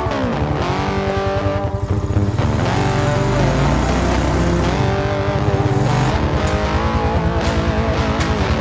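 Honda Rancher ATV's single-cylinder four-stroke engine running at low speed. Its note falls as the throttle is let off at the start, then holds steady with a fast pulsing exhaust beat.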